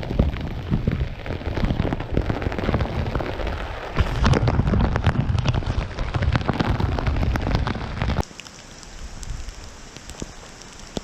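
Rain, a dense crackle of drops over a low rumble, that cuts abruptly to a quieter, steady hiss about eight seconds in.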